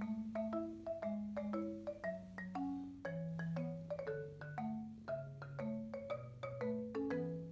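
Background music: a light, bouncy tune of quick mallet-percussion notes, marimba-like, over a bass line.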